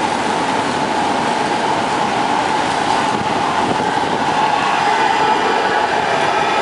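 A light-rail tram approaches and rolls past on its track over a steady rush of fountain water, growing a little louder from the middle on, with a faint whine coming in near the end.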